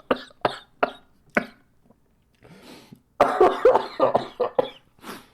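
A man coughing: four short, sharp coughs, then a louder, longer coughing fit with his voice in it about three seconds in, set off by a strong fizzy cola candy in his mouth.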